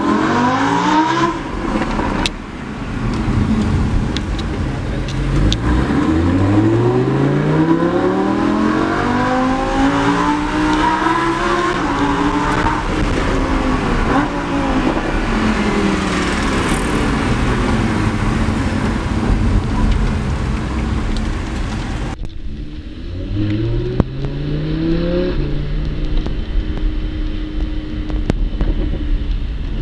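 Lamborghini Huracán's V10 engine heard from inside the cabin, accelerating hard: the engine note rises in pitch again and again, dropping back at each gear change, between stretches of steadier cruising.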